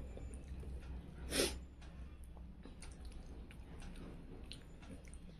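Eating sounds: chewing, with soft squishing and faint clicks as fingers mix rice on a steel plate, over a steady low hum. A brief louder rush of breathy noise comes about a second and a half in.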